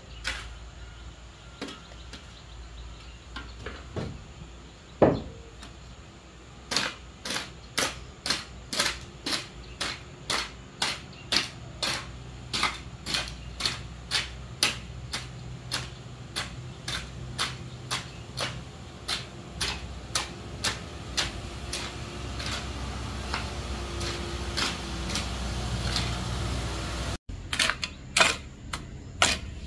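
A steady run of sharp knocks, about two to three a second, over a low hum that grows a little louder. A single louder knock comes about five seconds in, before the run starts.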